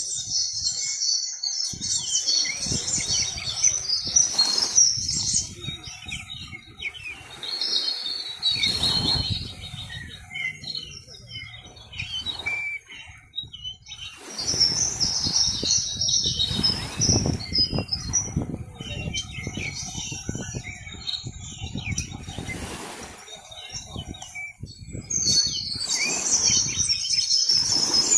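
A flock of small birds chirping and chattering, thick and continuous, thinning in the middle and rising again near the end. A low rushing noise swells and fades now and then underneath.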